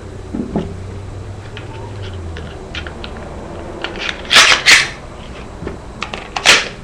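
Glock 22 pistol being reassembled by hand: light clicks and scrapes of parts being handled, then two loud, sharp clacks close together about four and a half seconds in and another near the end as the slide and frame are fitted and worked.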